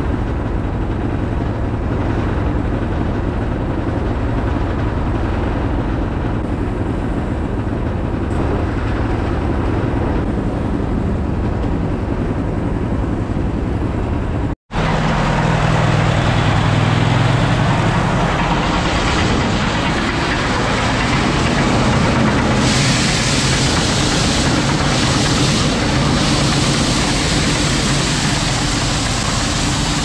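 A truck engine running steadily. After a cut about halfway through, a Kohler engine driving a grain auger runs with a strong low hum. From about two-thirds in, the steady hiss of shelled corn pouring from the truck's hopper into the auger joins it.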